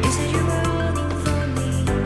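Background music: sustained chords over a steady low bass, with a soft regular beat and the chord changing twice.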